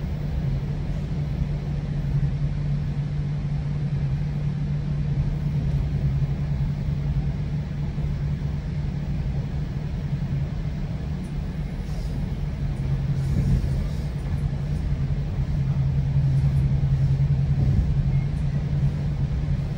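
Steady low rumble of a GO Transit bilevel passenger coach running along the track, heard from inside, with a constant low hum under it that swells a little near the end.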